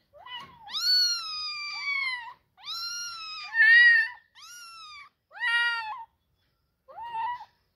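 Kittens meowing, a string of about seven high-pitched meows with short gaps between them. One long, drawn-out meow comes about a second in, and the loudest comes about four seconds in.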